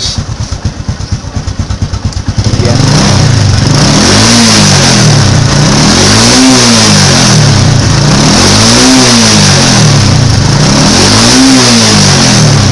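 Honda Supra X125's single-cylinder four-stroke engine, heard at the exhaust muffler. It idles, then is revved about two seconds in and held high, its pitch swelling and falling about four times. The engine has just had its combustion chamber cleaned, and is run to blow the loosened carbon and smoke out through the exhaust.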